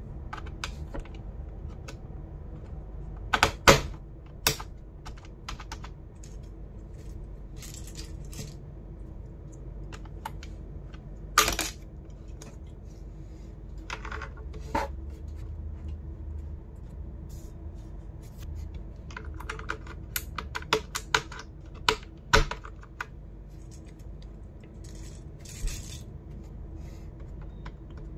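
Sharp plastic clicks and clatter of computer keyboard keys, in irregular scattered groups with pauses between. A quick run of clicks comes about two-thirds of the way in.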